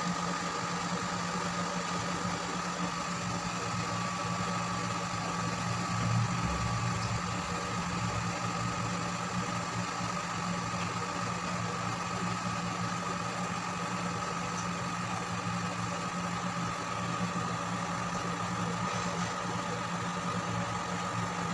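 Induction cooktop running while it heats an aluminium pan of milk: a steady hum, likely from its cooling fan, with a thin high tone held throughout.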